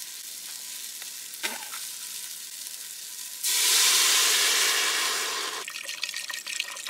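Chorizo slices sizzling in a hot stainless stockpot on a gas burner. About three and a half seconds in, vegetable stock poured from a carton hits the hot pot and the sizzle jumps to a loud hiss for about two seconds, then eases into the splashing of the pour.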